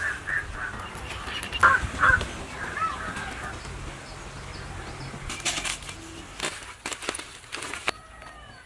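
Birds calling with short, repeated calls in the first few seconds, then a run of sharp clicks and crackles from about the middle on, with a few faint chirps near the end.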